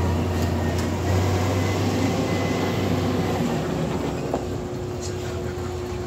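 Motor grader's diesel engine running as the machine drives slowly past, a steady low hum that fades gradually.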